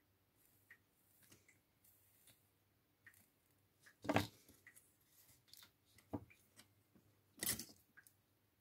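Faint clicks and small handling noises of small parts being worked by hand, with two louder brief rustles, one about four seconds in and one near the end.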